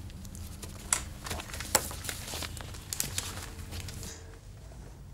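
Paper rustling at a desk with a few sharp clicks and taps from handling papers and a pen; it quiets down a little after four seconds in.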